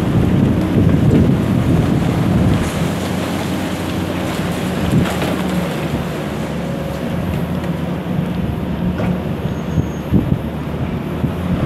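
Diesel engines of demolition excavators running steadily, mixed with a few sharp knocks and cracks of concrete being broken off and falling as a high-reach demolition excavator works the upper floors of a concrete building. Wind rumbles on the microphone.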